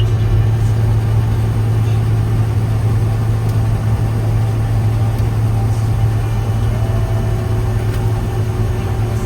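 Gleaner R75 combine running steadily, a constant low engine drone with even machinery noise over it.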